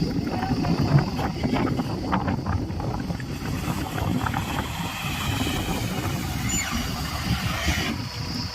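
Heavy diesel engine of earthmoving machinery running steadily under load, with a few short knocks in the first seconds and a faint rising whine near the end.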